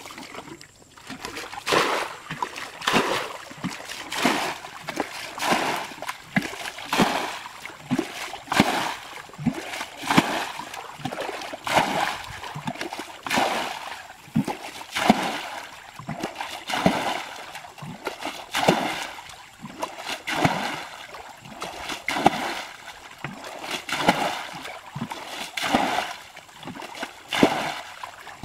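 Water bailed out of a muddy ditch with a bucket: a scoop and a splashing pour again and again, roughly one every second or a little slower.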